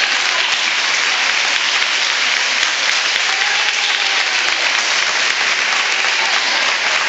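Audience applauding steadily, a dense, continuous clapping.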